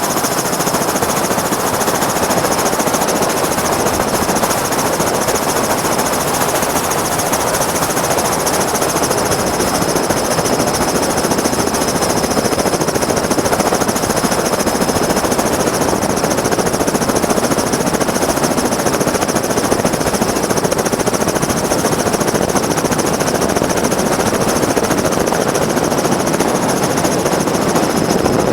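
Helicopter heard from on board: rapid, steady beating of the rotor blades with a steady high whine above it.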